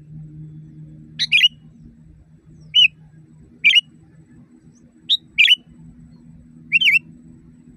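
Sooty-headed bulbul calling: short, loud, liquid chirping phrases, some doubled, repeated about every one and a half seconds over a faint steady low hum.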